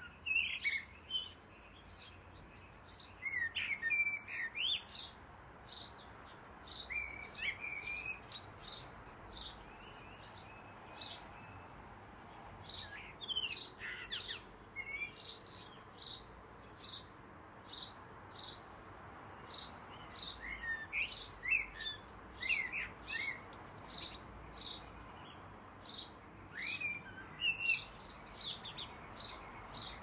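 Common blackbird singing its dawn song: fluted warbling phrases broken by pauses, among many short high chirps and squeaky notes.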